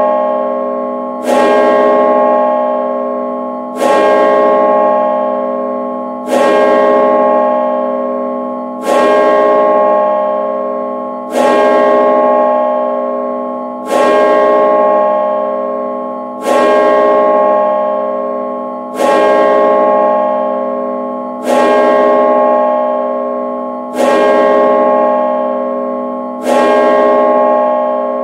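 A church bell striking midnight: one stroke about every two and a half seconds, each at the same pitch and left ringing until the next.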